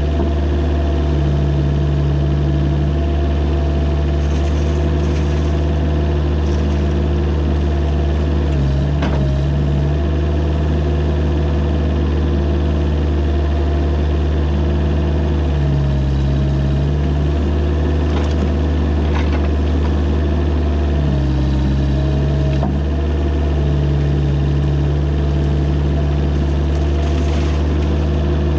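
Mini excavator's diesel engine running steadily, its note sagging briefly a few times under load. A couple of faint knocks come partway through.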